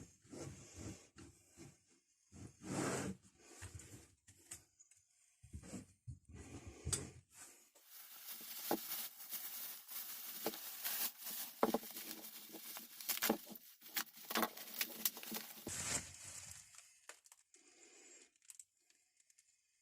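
Hands handling items on a bench: a few scattered knocks and rustles, then several seconds of continuous crackling and tearing, like wrapping being torn and crumpled open, which stops about four seconds before the end.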